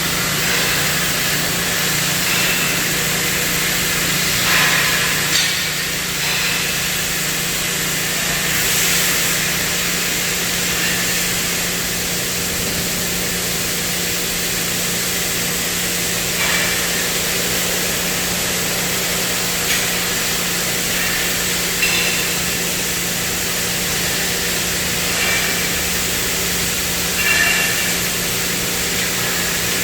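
CNC metal cutting machine at work: a steady hiss over a constant hum, broken by a few short, louder noises.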